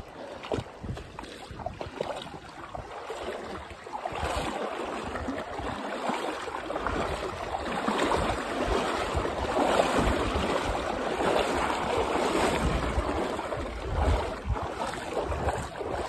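Muddy stream water rushing and splashing around a bicycle's front wheel as it goes through a shallow, flooded trail crossing. The water gets louder about four seconds in and eases off near the end, with low rumbles from wind on the microphone.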